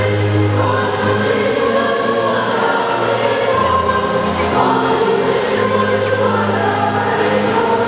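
Church choir singing a hymn, the notes held long and continuous.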